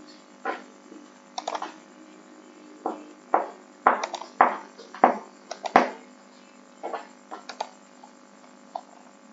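Computer keyboard and mouse clicks: short quick runs of key taps and several louder single clicks in the middle, over a faint steady hum.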